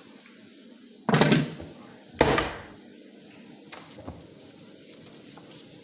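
Kitchen clatter: two short, loud knocks about a second apart as a pot of rice is set down and a kitchen drawer is pulled open, followed by a couple of faint clicks.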